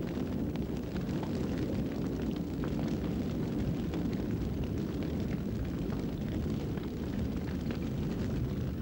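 Large brush fire burning: a steady low roar with scattered crackles.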